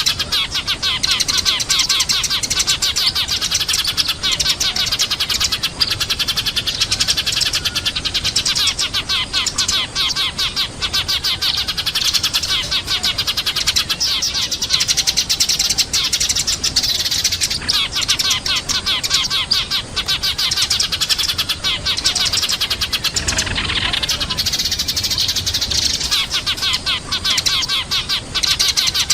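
Eurasian tree sparrows chirping in a dense, continuous run of rapid, overlapping chirps.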